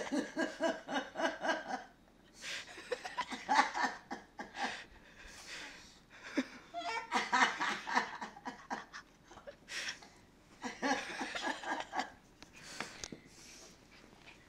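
Hearty adult laughter in four or so bursts of rapid ha-ha-ha pulses, with short pauses between.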